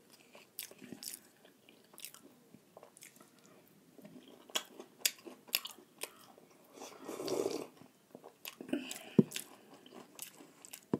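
Close-up eating sounds: chewing with scattered wet clicks and smacks of the mouth. About seven seconds in there is a longer slurping sip from a bowl of sauce.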